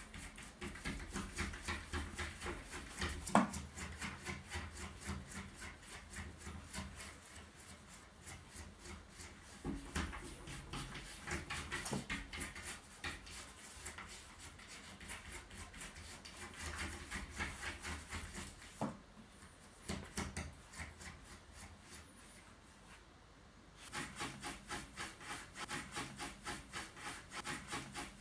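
Cat clawing at a closed door, fast rasping scratch strokes at about five a second in runs with short pauses, and a few sharper knocks as paws hit the door: a cat wanting to be let out.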